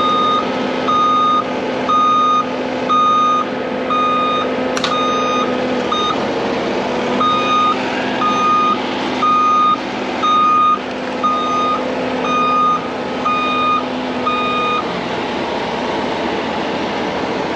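Reversing alarm beeping about once a second over the steady drone of a diesel machine working. The beeping pauses briefly about six seconds in, then stops together with the drone near the end. There is a single sharp click about five seconds in.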